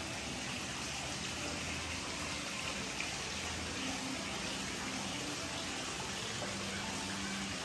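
Steady, even rush of water.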